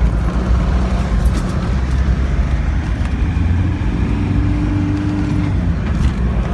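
Land Rover Defender's engine running as it drives slowly over a rough track, a steady low drone with a plain hum added for a couple of seconds near the middle.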